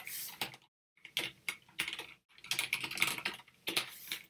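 Computer keyboard typing in four short bursts of keystrokes, with brief silent pauses between them.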